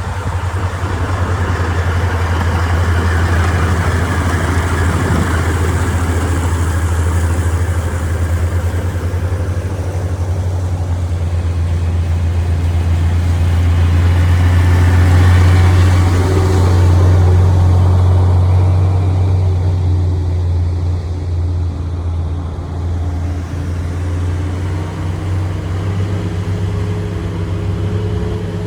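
Diesel engine of a water truck running steadily with a deep hum, over a broad hiss of spraying water that swells about halfway through and then fades. After that the engine's tones stand out more clearly.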